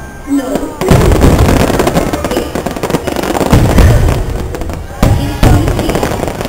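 Aerial fireworks shells bursting in a string of loud booms, about a second in, around four seconds and again near five seconds, over the show's soundtrack music.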